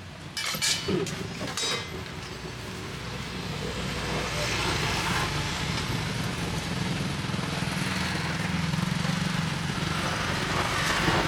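A motor vehicle engine running steadily, growing louder over several seconds, with a few clicks and knocks in the first two seconds.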